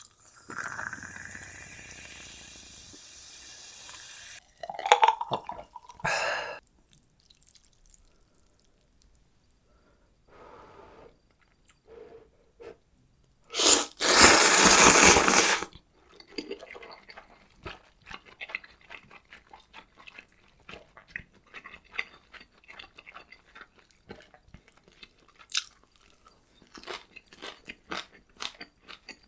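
Close-miked eating sounds of gimbap and ramyeon: scattered small clicks and crackles of chewing and handling food, with a loud rush of noise lasting about two seconds halfway through.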